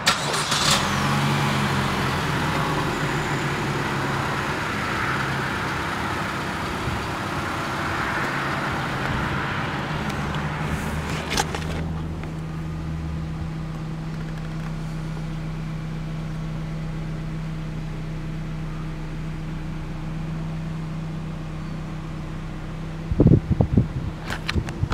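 A Chevrolet Cruze sedan's engine idling with a steady low hum, with outdoor background noise in the first half. A few handling knocks come near the end.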